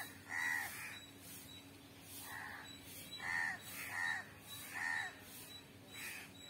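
A bird calling over and over outdoors: about six short calls, each rising and then falling in pitch, roughly a second apart.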